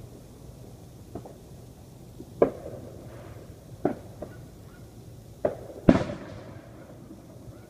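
Fireworks going off at a distance: about six sharp bangs at uneven intervals. The loudest comes near six seconds in and echoes on for about a second.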